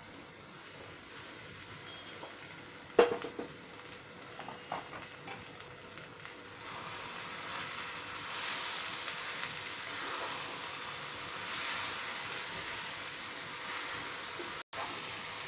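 Fenugreek leaves and fried potatoes sizzling in a pan as they are stirred with a wooden spatula. A sharp knock comes about three seconds in. From about six seconds in the sizzle grows louder and swells with each stir.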